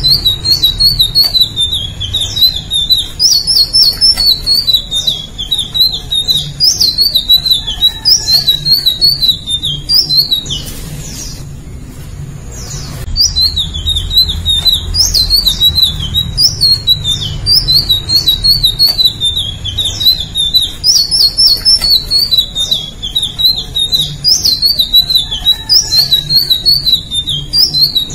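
Indigo flycatcher singing long runs of quick, high, zigzagging warbled notes. The song breaks off for about two seconds near the middle, then starts again.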